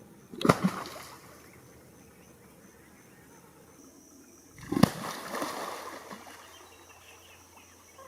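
Two American alligator head slaps, about four seconds apart: each a sharp pop as the jaws smack the water surface, followed by splashing. This is a mating-season courtship display.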